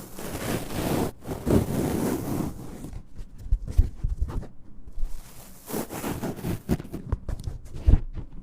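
Ear-cleaning tools scraping and rubbing against a microphone's artificial ear, in irregular scratchy strokes. A run of quick crackling clicks comes in the middle, with scattered soft thumps.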